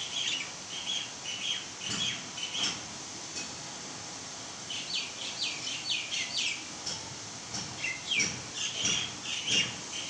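Myna calling repeatedly: short chattering calls, a pause, a quick run of five sharp notes about halfway through, then more calls near the end.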